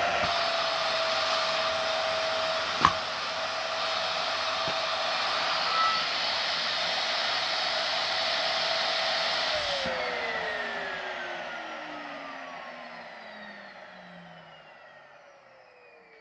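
Small electric fan motor, such as that of a hair dryer or vacuum cleaner, running with a steady whine and a sharp click about three seconds in. About ten seconds in it is switched off and winds down, its whine falling in pitch and fading.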